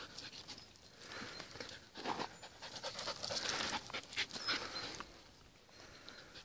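A dog panting close by, a run of quick open-mouthed breaths that grow louder in the middle and ease off toward the end.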